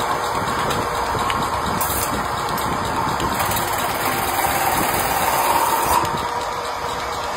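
Metal-spinning lathe running, an aluminium pot turning on its form while a hand-held tool presses against the spinning metal: a steady, rough mechanical noise. A high hiss drops away about six seconds in.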